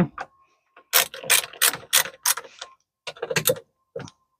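Rapid ratchet-like clicking from hand-tool work on an RV door lock mechanism being shifted into place. There is a quick run of clicks about a second in, then a shorter group around three seconds in, and a couple more near the end.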